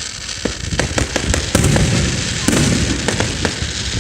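Fireworks going off: a rapid run of sharp crackling pops over deep booms, growing denser about a second and a half in.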